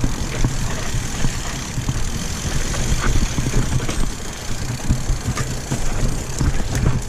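Mountain bike riding fast over rough singletrack: wind rumbling on the microphone, with the bike rattling and knocking over bumps throughout.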